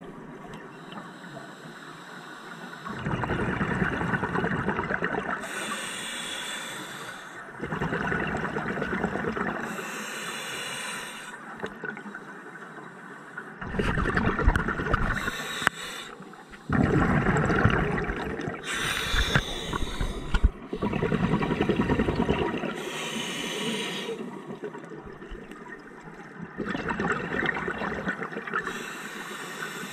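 Scuba diver breathing through a regulator underwater: a hiss on each inhalation alternating with the bubbling of exhaled air, about six slow breaths.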